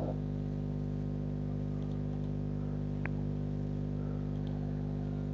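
Steady low hum with no speech, and one short click about three seconds in.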